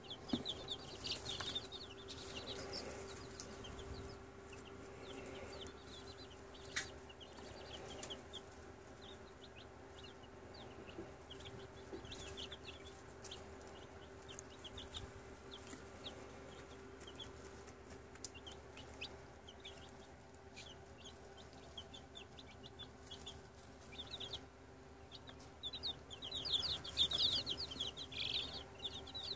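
Four-day-old chicks peeping: a steady stream of short, high, falling peeps that grows busier and louder near the end, over a steady low hum.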